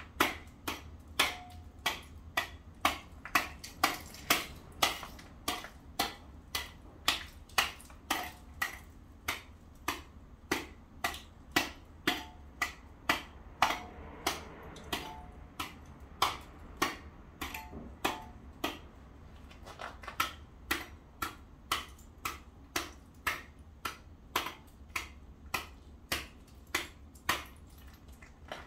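A metal tool repeatedly striking and chipping at ice on paving: sharp, ringing strikes about two to three a second, with a short pause about two-thirds of the way through.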